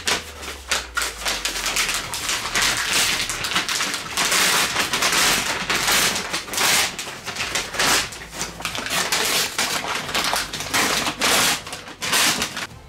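Brown paper shipping bag being crumpled and torn open by hand, with continuous crinkling and ripping.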